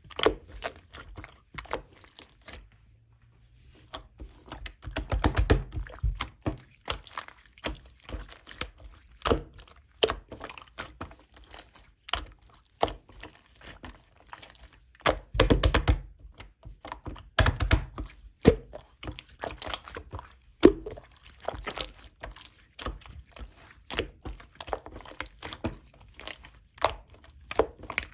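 Slime being squished and pressed by hand: a steady run of small sticky clicks and air-pocket pops, with louder squelching bursts about 5 s, 15 s and 17 s in.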